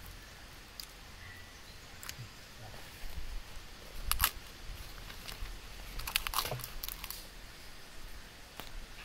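Open wood fire crackling, with scattered sharp pops from the burning twigs and dry leaves: the loudest about four seconds in and a quick cluster a couple of seconds later.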